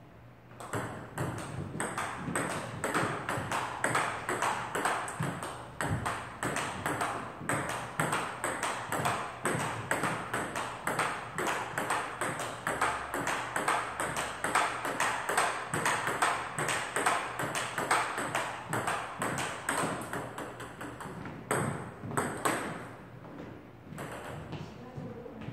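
Table tennis rally: the ping-pong ball clicks quickly back and forth off two paddles and the table in a continuous run of hits. The hits ease off near the end.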